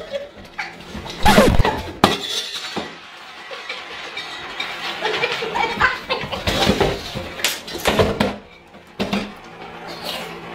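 Two women laughing and shrieking during a playful scuffle at a table, with irregular knocks and clatter from bumping and slapping.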